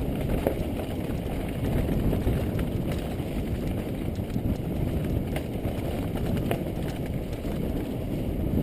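Downhill mountain bike riding fast over a rough dirt trail, heard through a GoPro Hero 2's microphone: a steady low rumble of tyres and trail with scattered sharp clicks and rattles.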